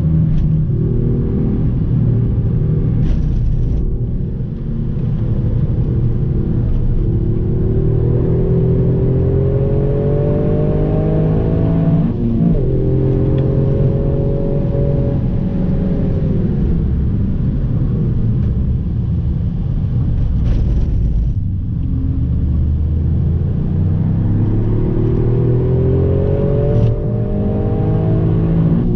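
Toyota Yaris engine heard from inside the cabin while driven hard on a track. The revs climb steadily, drop suddenly at a gear change about twelve seconds in and climb again, fall away as the car slows, then rise once more near the end, over steady road noise.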